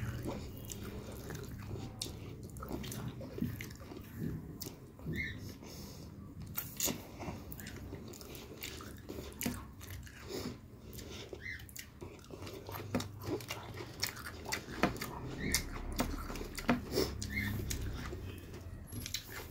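Close-up chewing and mouth sounds of a person eating chicken curry and rice by hand: irregular wet smacks and small clicks, with the occasional crunch.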